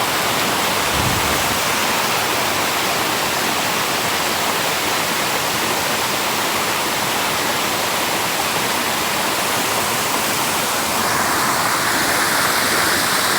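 Waterfall: a steady rush of falling water, its tone shifting a little about eleven seconds in.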